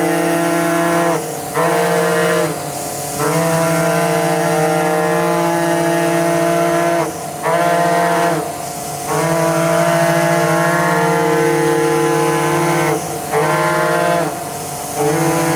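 CNC oscillating-knife cutting machine running with a steady mechanical hum. The hum drops briefly in a repeating pattern, twice about every six seconds.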